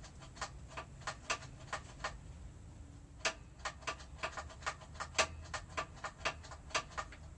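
Quick, irregular light clicks and ticks, several a second, from hand work on a motorcycle's rear hydraulic brake while it is being bled.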